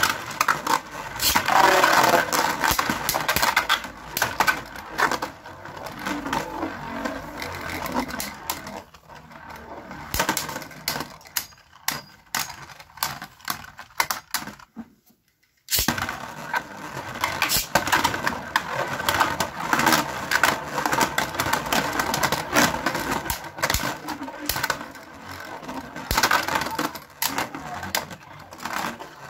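Beyblade Burst spinning tops whirring and scraping around a plastic stadium, clacking rapidly against each other and the stadium walls. The sound cuts out for a moment about halfway, then starts again just as busy.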